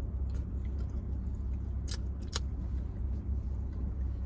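Steady low hum of a car idling, heard from inside the cabin, with two short sharp crackles about two seconds in.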